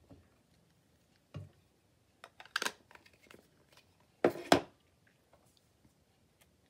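Handling a plastic Distress Ink pad over crinkled paper: scattered light taps and rustles, with two louder knocks a little past halfway.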